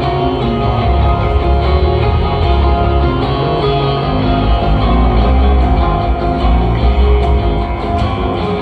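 A rock band playing live, an instrumental passage led by electric guitar over bass and drums, loud and distorted as heard on a phone recording in the crowd.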